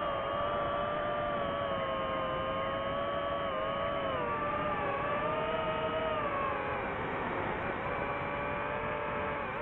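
DJI FPV drone's motors and propellers whining in flight. The tone wavers with throttle, dipping in pitch about halfway through and coming back up.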